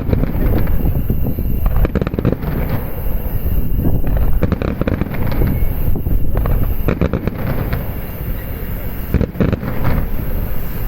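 Aerial fireworks shells bursting in a dense barrage: a continuous low rumble of booms, with clusters of sharp crackling reports about every two and a half seconds.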